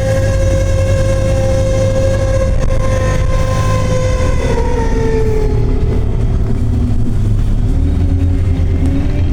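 London bus running with a loud, steady whine over a low drivetrain rumble; the whine holds its pitch, then falls and fades about four and a half seconds in as the bus slows.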